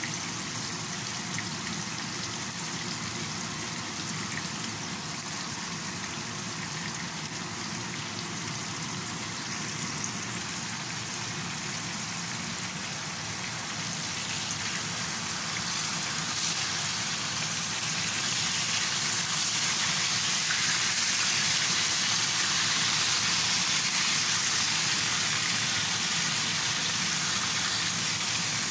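Milkfish (bangus) pieces frying in hot oil in a pan: a steady sizzle that grows louder about halfway through, as the pieces are turned over with tongs.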